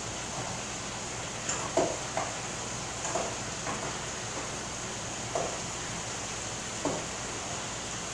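A metal spoon stirring rice in a pot, knocking and scraping against the pot's sides in a few irregular strikes, the loudest about two seconds in. Under it runs a steady sizzle from pork chops frying in a skillet on the gas burner.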